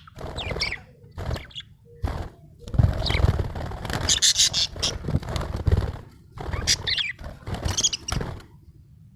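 Budgerigar chirping and chattering in short, rapid bursts, falling quiet near the end.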